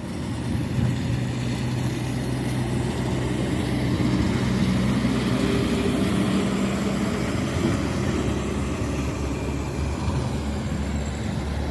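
Diesel engine of a light dump truck running steadily as the truck drives past close by on a muddy dirt road. It grows louder toward the middle and eases slightly as the truck pulls away.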